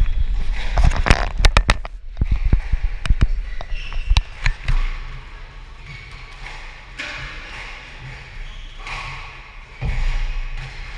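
Squash ball being struck by rackets and smacking off the court walls and floor in a rally: a quick run of sharp hits over the first five seconds. Then a quieter pause, and another hard hit near the end as the next serve is struck.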